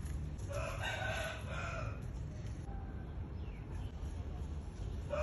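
A rooster crows once, a call of about a second and a half starting about half a second in, over a steady low background rumble.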